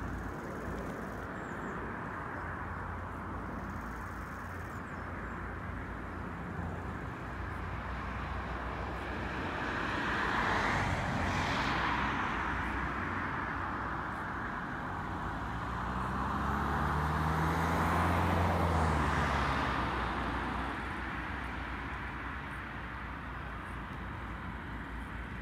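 Lockheed C-130 Hercules military transport aircraft flying over, the drone of its four turboprop engines swelling twice, about ten and eighteen seconds in. On the second pass a low propeller hum falls in pitch as the aircraft goes by.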